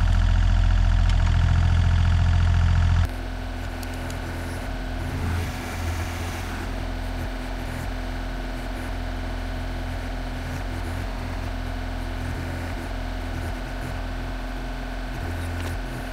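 Takeuchi TB235-2 mini excavator's diesel engine running steadily as the machine digs out a tree stump. About three seconds in the sound drops to a quieter, steady level.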